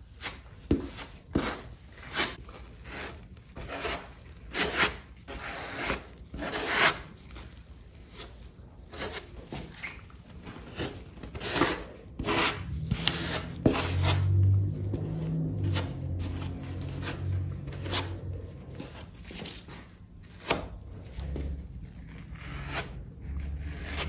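Plastic spreader scraping white filler paste across the bare foam of a stripped surfboard blank, in repeated short strokes. A low hum that shifts in pitch comes in underneath about halfway through.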